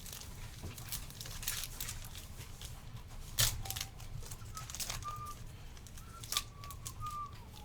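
A trading-card pack wrapper torn open and crinkled, with the cards inside handled: a run of irregular sharp crackles and clicks.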